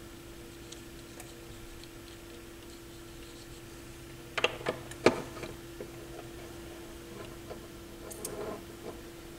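Handling noise from small tools being used on a turntable's metal deck: a few sharp clicks and taps about halfway through and a smaller cluster near the end, over a faint steady hum.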